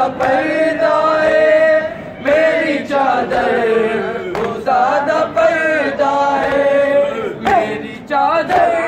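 Men chanting a Punjabi noha, a Shia mourning lament, together in long sung phrases that rise and fall, broken by short breaths about every two to three seconds.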